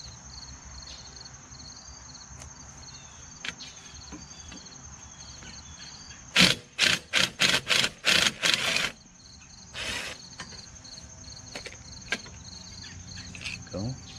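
Cordless power driver with a Torx bit on an extension, run in a quick series of about seven short bursts and then once more, backing out the intake manifold screws on a Tecumseh snowblower engine. Crickets chirp steadily in the background.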